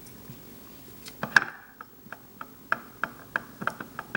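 Small sharp clicks and taps from a plastic yo-yo being twisted apart by hand to get at its response system. One loud click comes about a second in, then lighter clicks follow at roughly three a second.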